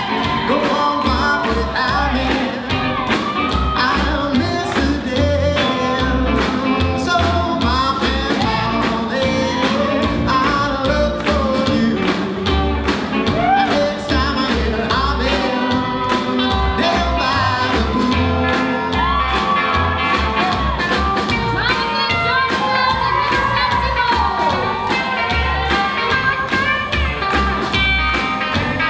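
Up-tempo 1950s-style rock and roll with a singer over a steady, driving drum beat and a pulsing bass line.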